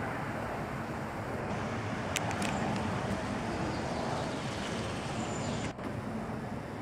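Helicopter passing nearby, a steady low rotor and engine sound.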